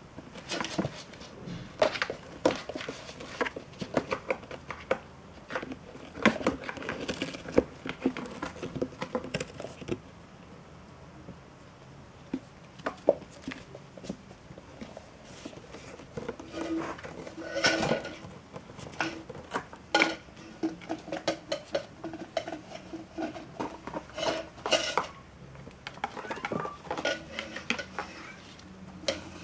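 Kittens scrambling in and around a cardboard box: many small knocks, scratches and scrapes of claws and paws on the cardboard and the wooden floor, with a quieter stretch in the middle.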